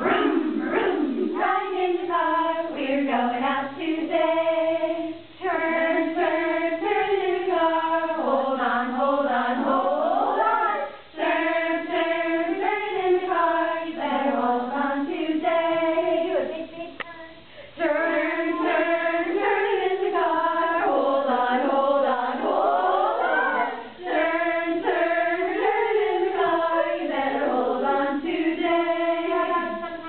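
A group of women singing a song together without instruments, breaking briefly between phrases, with a couple of rising sung swoops.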